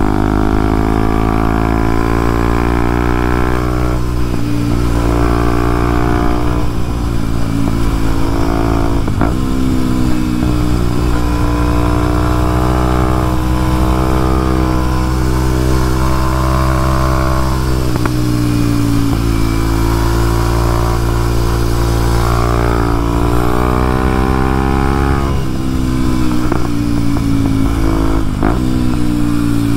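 Kawasaki KLX230SM's single-cylinder engine under way, pulling up through the gears: the pitch climbs in each gear and drops sharply at each upshift, several times over.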